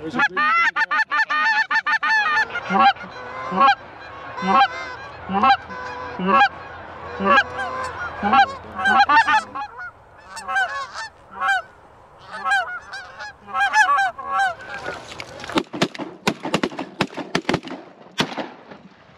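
Canada goose honking and clucking: short calls repeated about once or twice a second, with a fast flurry of clucks about a second in. Near the end the honks give way to a run of sharp cracks.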